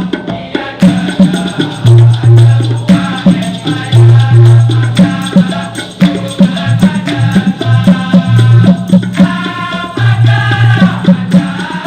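Dikir barat music: drums beating a steady rhythm under shaken maracas, with voices singing a melodic line over them.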